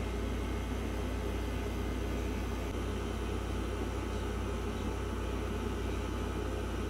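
CNC S1 wireless tattoo pen's brushless motor running steadily while its needle lines skin: a steady, even low hum.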